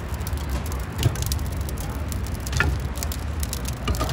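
Wood fire of split planks crackling in a firebox over a steady low rumble, with three knocks as planks are pushed into the flames.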